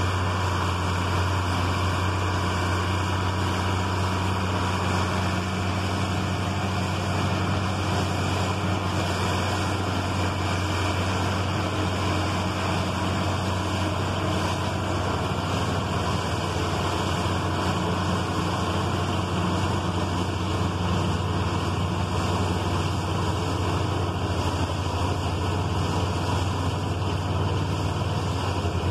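Tractor engine running steadily under load, driving a Gehl pull-type forage chopper that is chopping corn for silage.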